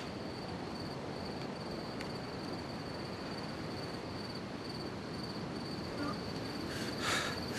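Crickets chirring steadily in a high, even trill over a low background hiss.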